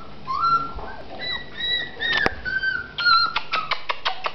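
Border collie puppies squeaking and yipping in short high calls while play-fighting. Quick clicks run through the second half.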